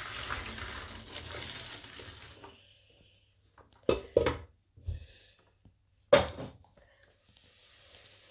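Hot water and parboiled spaghetti poured from a cooking pot into a plastic colander in a stainless-steel sink, splashing for about two and a half seconds as the pasta is drained. Four sharp knocks follow, pot and colander clattering in the sink.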